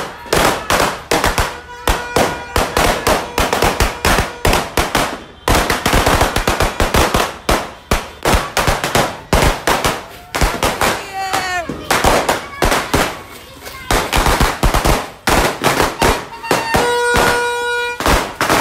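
Firecrackers going off in rapid, continuous bangs, string after string, with no break. A horn gives a short steady blast about two seconds in and a longer one near the end.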